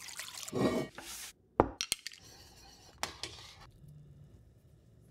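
Water poured from a glass measuring cup into a cast-iron pot for about the first second, followed by a few sharp clinks and knocks of cookware.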